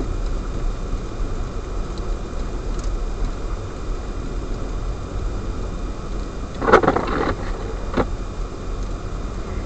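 Steady low road and engine rumble of a car driving on a snow-covered road, heard from inside the car. About seven seconds in there is a short, louder burst of noise, with a sharp click about a second later.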